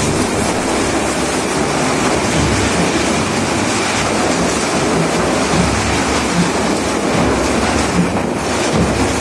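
Cyclone-force wind and heavy rain, a loud continuous roar with an uneven low rumble underneath.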